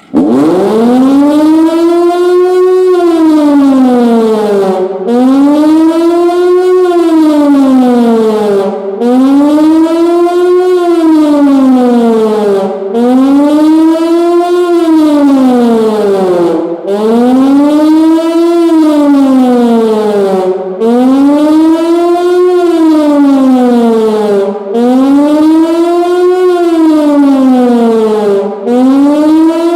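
Pintsch Bamag HLS high-performance siren starting abruptly and sounding the German public-warning signal. Its loud wailing tone rises for about two seconds and falls for about two, over and over, with a brief break between sweeps.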